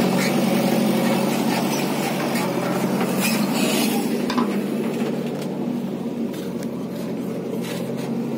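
Diesel engine of farm machinery idling steadily, getting a little quieter toward the end.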